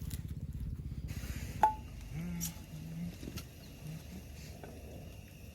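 Breakfast cooking at a camp: a low fluttering rumble, one sharp metallic clink about a second and a half in, then a few short low hums.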